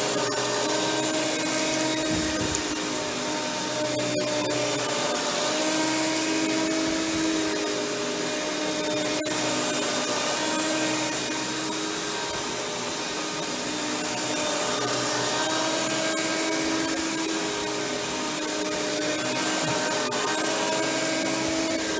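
Hoover Windtunnel Plus canister vacuum (model S3639) running with its power brush on: a steady motor drone and hiss, with a whine that drifts slightly in pitch.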